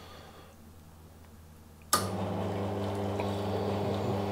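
Espresso machine's pump switching on about two seconds in and running steadily with a hum, water flushing through the group head to clean it.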